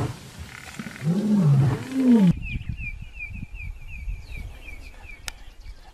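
A lion gives two loud roaring calls, each rising and then falling in pitch. The sound then cuts off abruptly to a quieter scene with a low rumble, a bird chirping fast on one repeated note, and a single sharp click near the end.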